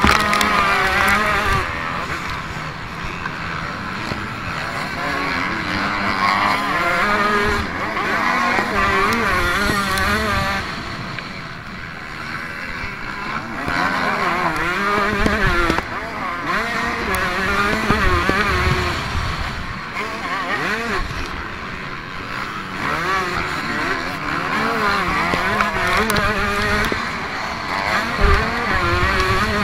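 Motocross bike engine heard from on the bike, revving up and down as the throttle opens and closes and the gears change, with wind rumble on the microphone.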